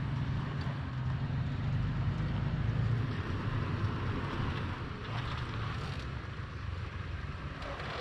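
Toyota FJ Cruiser's 4.0-litre V6 running at low speed as the truck crawls over sandstone, a steady low drone.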